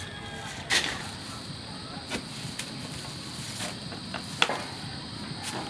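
Machete chopping through a bundle of red paper firecracker tubes on a wooden block: about seven sharp, irregularly spaced strikes, the loudest about a second in and just past the middle. A steady high hum runs underneath.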